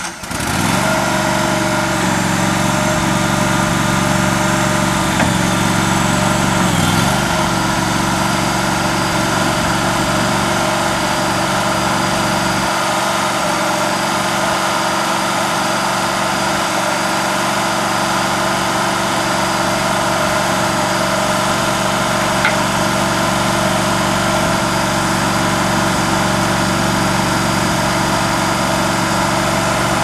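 Engine of a small towable backhoe catching just after cranking, then running steadily at idle.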